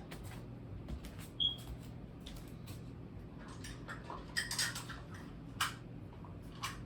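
Light clicks, knocks and clatter of kitchen items being picked up and set down: a plate and measuring spoons. There is a brief high squeak about a second and a half in and a busier clatter near the middle.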